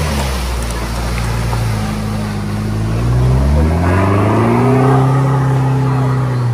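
Nissan Patrol ute's engine pulling under load through a mud hole, revving up about halfway through and holding high revs, with mud splashing off the spinning tyres.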